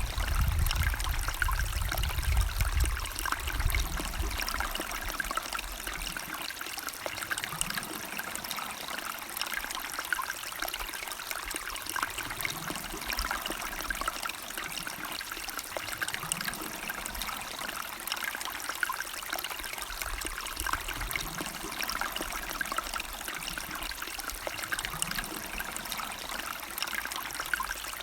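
River water flowing and trickling steadily, with a low rumble under it for the first few seconds that then fades.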